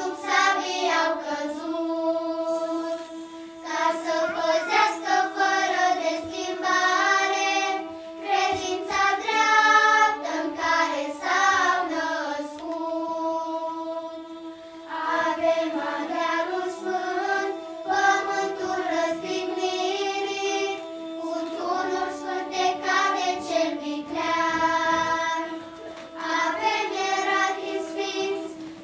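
Children's choir singing a Romanian song in phrases of a second or two, over a steady held low note.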